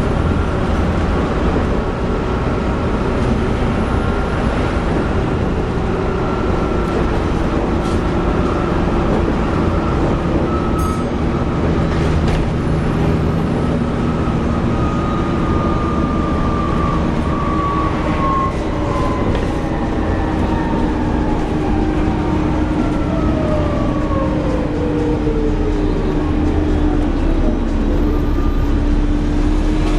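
Volvo B7TL double-decker bus running along, heard from inside on the upper deck: a steady engine and drivetrain drone with a slight whine from the engine cooling fan. Over the second half, several whining tones slide down in pitch as the bus slows.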